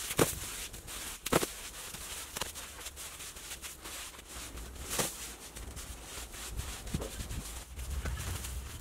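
Bare hands rubbing, scraping and patting wet cement mortar onto a sloped earth wall, with a few sharp slaps; the loudest come just after the start and about a second and a half in.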